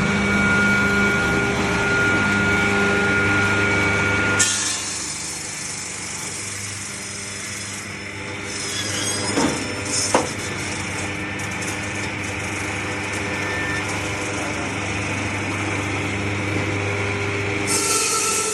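A 12-blade, hand-pushed ice-block cutting machine running, its motor humming steadily under the hiss of the blades sawing. The sound drops and changes about four seconds in, with two short sharp scrapes around nine and ten seconds in, and the hiss grows again near the end.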